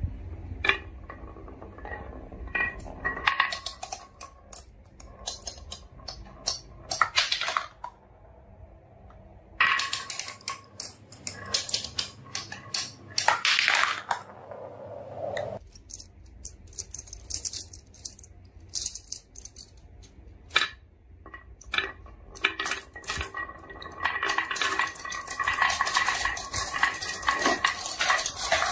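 Marbles rolling down wooden marble-run tracks, clicking and clacking against the wood, the wooden stops and each other. Near the end the clicking turns dense and continuous as many marbles run down together.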